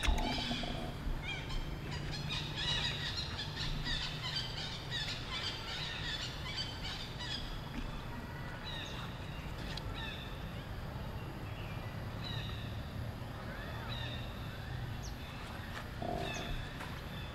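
Many short, high-pitched animal chirps and squeaks, overlapping thickly in the first several seconds and then coming more sparsely, over a steady low rumble.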